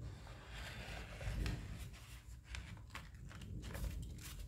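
Folded paper rustling and crinkling in quick, uneven handfuls as the last folds of a paper boat are pulled open.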